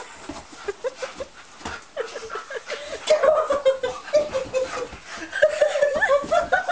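A Rottweiler tussling with a man on a sofa: short pitched vocal sounds amid the scuffling. About three seconds in, a longer sound falls slowly in pitch.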